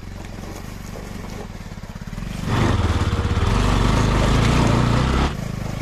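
Motorcycle engine running at low revs on a rough off-road track, then revving up and pulling harder about two and a half seconds in, and easing off again near the end.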